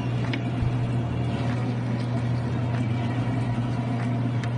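Boat engine running with a steady low hum, with a few faint clicks over it.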